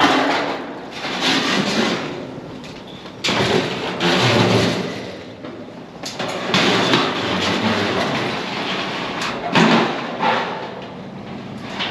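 Loose sheet-metal roofing and tarp rattling and scraping in strong gusts of wind. Irregular swells of noise come and go every second or two, with a couple of sharp knocks about nine and a half seconds in.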